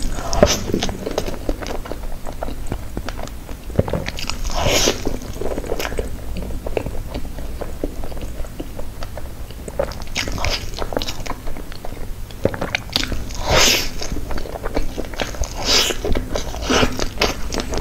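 Close-miked eating sounds of a woman biting into and chewing handfuls of soft strawberry crepe cake, coming in clusters of wet clicks and smacks every few seconds.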